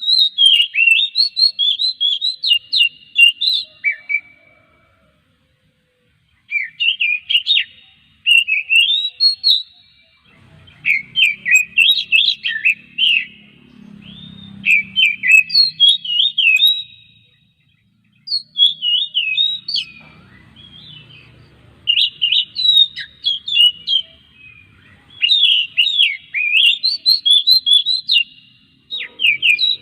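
Oriental magpie-robin (kacer) singing: fast, varied phrases of quick whistled notes sweeping up and down, in bursts of two to four seconds with short pauses between. A faint low rumble lies under the song in the middle.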